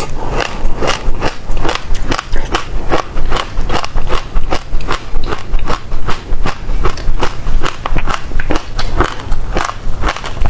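Close-miked chewing of passion fruit pulp, the seeds crunching in a steady run of sharp crackly clicks, about three a second.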